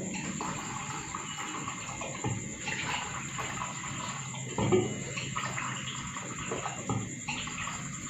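Warm water poured in a steady stream into a drinking glass, with a few light knocks.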